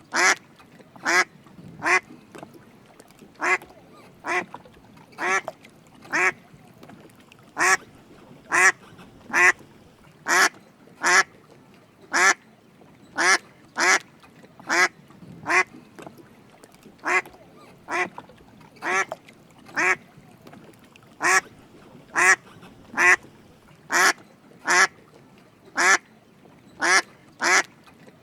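Drake mallard duck quacking: short, raspy calls repeated steadily at about one a second, sometimes in quick pairs.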